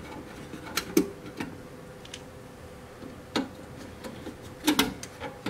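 Screwdriver working the small screws out of the RF generator's front panel: scattered light metallic clicks and taps. There are a few about a second in, one past the middle, a louder cluster near the end, and a faint steady hum underneath.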